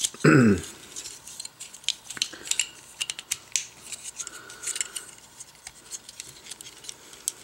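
Plastic parts of a Transformers Combiner Wars action figure being handled and snapped together: a run of small, irregular clicks and taps as pieces are moved and tabbed into place.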